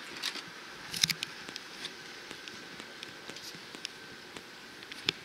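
Steady outdoor background hiss with scattered short sharp clicks and light knocks, the loudest about a second in and two more near the end.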